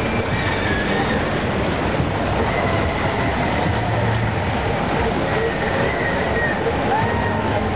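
Steady, loud rumbling noise with several short squeals that rise and fall in pitch, of the kind made by a rail vehicle's wheels running and squealing on the track.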